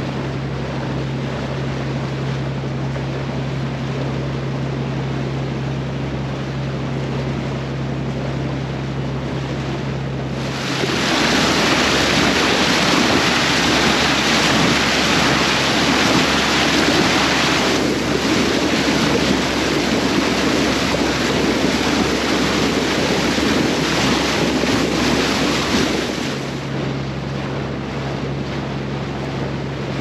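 A boat's engine running with a steady hum at sea. About ten seconds in, a loud rushing of wind and water takes over for some fifteen seconds, then the engine hum comes through again.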